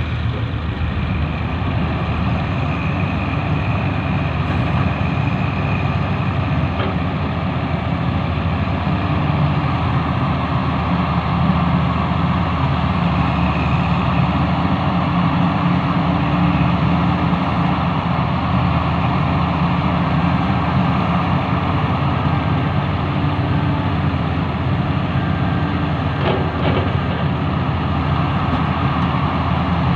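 Diesel engine of a Sumitomo SH350 excavator running steadily under work.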